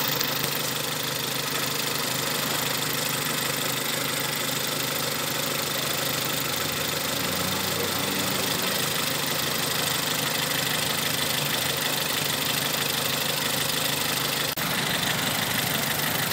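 Renault 16-valve four-cylinder petrol engine idling steadily, a good, clean sound: a freshly fitted engine running healthy.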